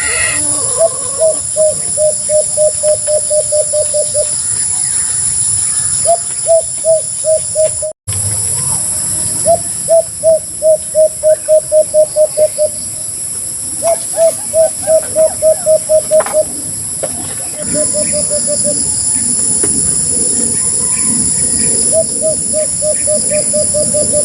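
White-eared brown-dove calling: bouts of short hooting notes on one pitch, about four a second, repeated several times with pauses between. This is the call of an old male, the kind used to lure the birds.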